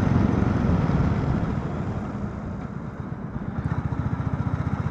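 Motorcycle engine running, its low firing pulses steady and becoming more distinct and a little louder in the second half.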